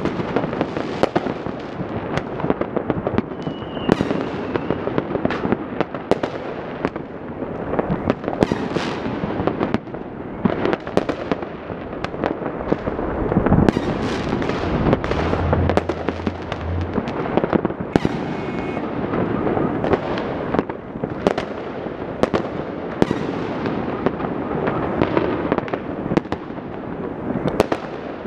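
Many fireworks and firecrackers going off across a city at once: a dense, unbroken crackle of bangs and pops.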